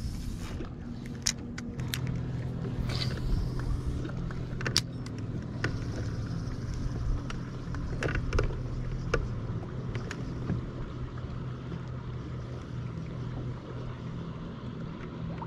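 A boat motor humming steadily at a low, even pitch, with scattered sharp clicks and knocks over it.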